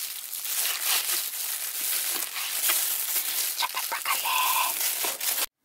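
A loose disposable plastic glove crinkling as a knife chops seasoned beef on a wooden cutting board, with many quick taps of the blade on the board. It cuts off suddenly near the end.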